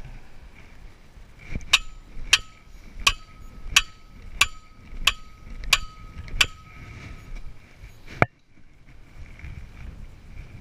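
Short-handled sledgehammer striking the top of a steel T-post, driving it into the ground: eight ringing metal-on-metal blows, about one every 0.7 seconds. A single sharp knock follows about two seconds later, then the background drops away abruptly.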